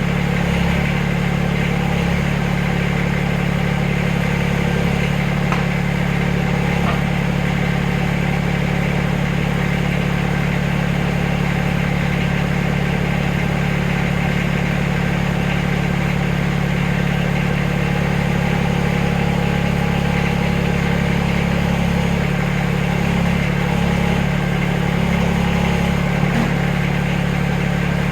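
Backhoe engine running at a steady speed, a constant low hum.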